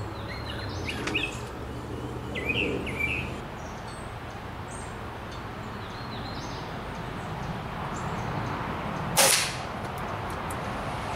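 A single shot from a .22 Crosman GuideHawk air rifle about nine seconds in: one short, sharp report. Birds chirp a few times earlier.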